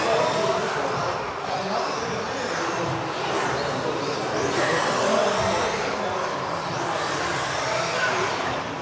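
Several electric off-road RC cars racing, their motors giving a high whine that rises and falls over and over as they accelerate and brake, echoing in a large hall.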